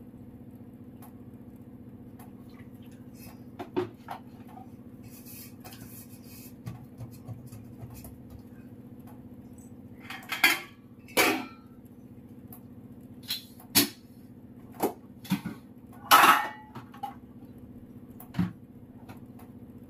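Steel kitchen vessels, lids and utensils clinking and knocking as they are handled on a counter: a handful of separate clatters, most of them in the second half, over a steady low hum.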